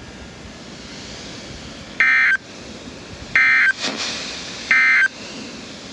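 Emergency Alert System end-of-message code: three short, buzzy digital data bursts about 1.3 s apart on a NOAA Weather Radio broadcast, marking the end of the severe thunderstorm warning. Steady radio hiss fills the gaps.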